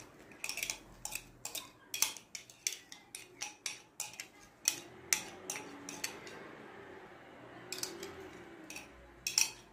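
A metal spoon clinking against a glass tumbler again and again as the last of a white liquid is tapped and scraped out into a plastic mixing bowl. The clinks come about three a second for several seconds, pause, then come a few more times near the end.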